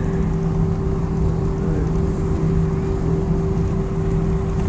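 Steady cabin noise inside an Airbus A319 on the ground after landing: the rush of the jet engines and air system with a constant low hum of two steady tones.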